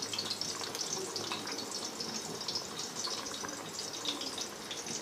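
Green chillies sizzling in hot oil for a tarka: a steady, fine crackling hiss.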